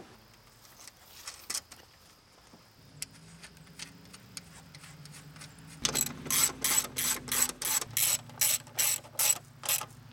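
A socket ratchet clicking as it runs a strut-mount nut down on the front strut tower. There are a few faint clicks at first, then about six seconds in a loud, steady clicking at roughly four clicks a second.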